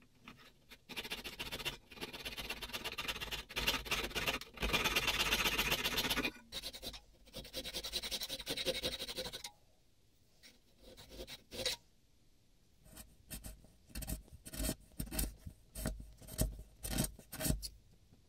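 A fine-toothed fret saw blade cutting a small piece of boxwood held in the hand, in fast, even strokes for several seconds. About halfway through the sawing stops, and a series of shorter, separate rasping strokes follows.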